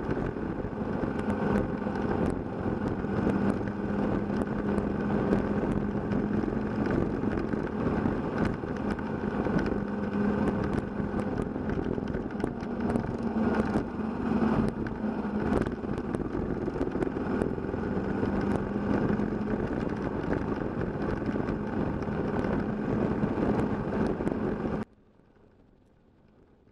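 Kawasaki KLR650 single-cylinder four-stroke engine running at a steady cruise, with tyre and wind noise and scattered small clicks. The sound cuts off abruptly near the end, leaving near silence.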